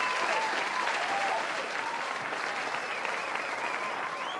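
Audience applauding, steady clapping with cheers and whoops gliding over it.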